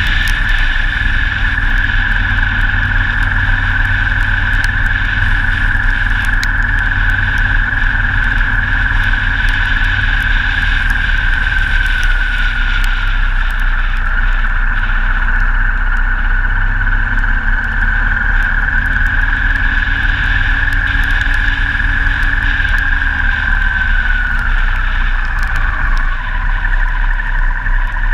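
Motorcycle riding on a wet road, heard from a camera on the bike: the engine runs with a high steady whine over rushing wind and tyre noise. The whine dips in pitch about halfway through and falls again near the end as the bike slows.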